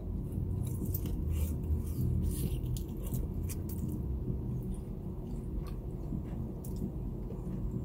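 Close chewing of a crispy fried chicken wing: a bite, then irregular crunches and wet chewing. A low steady hum sits underneath.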